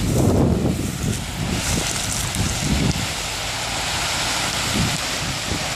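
Wind buffeting the microphone over a steady hiss of broken river ice floes moving and pressing along the bank during the spring ice breakup.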